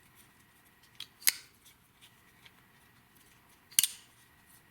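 A CRKT Ruger Hollow Point +P folding knife being worked, giving sharp metallic clicks of its blade and liner lock. A faint click about a second in is followed at once by a loud snap, and a second loud, doubled snap comes near the end.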